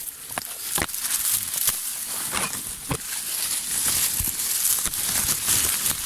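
Pushing through dense undergrowth: leaves and branches brushing and swishing past, with dry leaves and twigs crackling and snapping in irregular sharp clicks.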